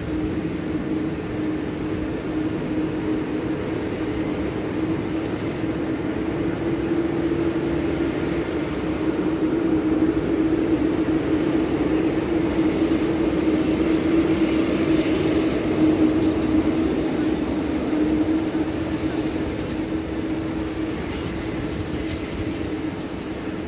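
Boeing 787-9 Dreamliner's twin turbofan engines running at taxi power: a steady low drone with a fainter high whine, loudest in the middle and easing near the end as the airliner turns away.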